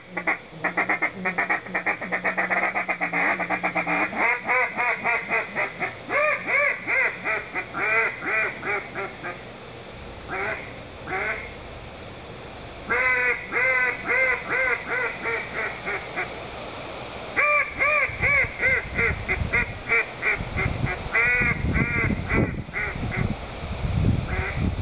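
BGB Death Whistle duck call blown in several runs of quacks. The first run is very fast and chattering; later runs are slower, with distinct quacks and short pauses between the runs.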